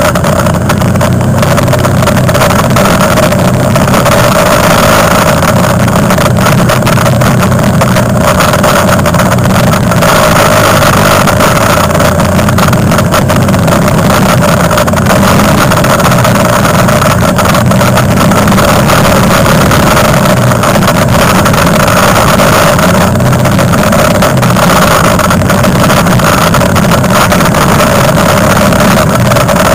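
Quad bike (ATV) engine running steadily, very loud and close as heard from a camera mounted on the quad, with no sharp changes in engine speed.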